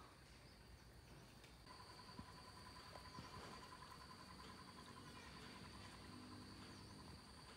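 Near silence: faint background ambience with a steady high-pitched whine and, from about two seconds in, a faint rapid pulsing tone.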